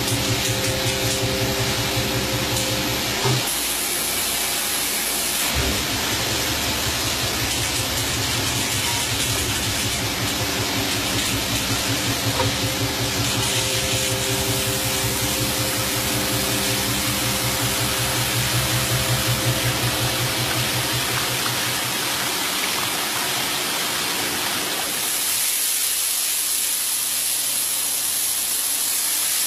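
Coin-minting machinery running: a steady mechanical drone with a fast low rattle and hum under a wide hiss, changing character at cuts between machines. Near the end the low drone drops away, leaving mostly hiss.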